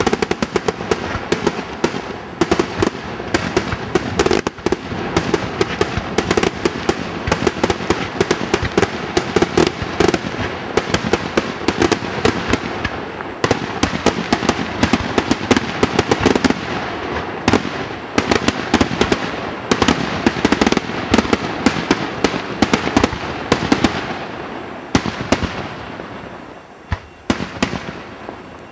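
Aerial fireworks display: a dense, continuous barrage of shell bursts and crackling, thinning to a few separate bangs near the end.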